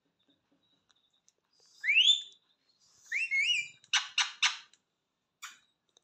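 Caged parakeet calling: a rising whistle, then a shorter wavering whistle, followed by three quick harsh squawks and a faint last one.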